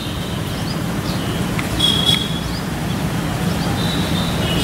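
Outdoor background noise: a steady low rumble, with short high bird chirps now and then.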